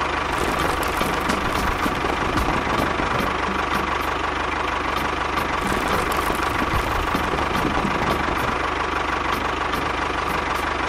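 Tractor engine running steadily at idle: an even, unbroken drone with a thin steady tone over it.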